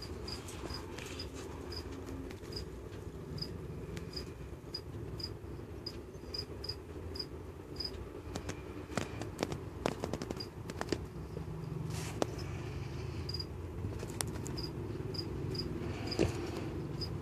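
A cricket chirping in short, high single notes, about two a second, pausing now and then, over a low steady hum, with scattered sharp clicks.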